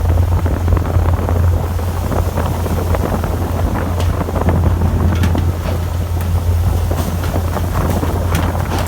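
Fishing boat's engine running with a steady low drone, with wind buffeting the microphone and a few sharp clicks.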